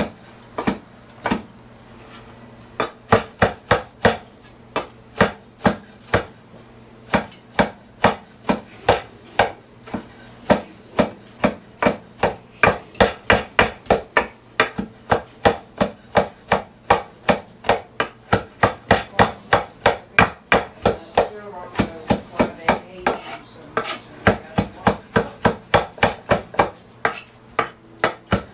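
Knife chopping barbecued pork on a cutting board: fast, even strokes about three a second, with a short pause near the start.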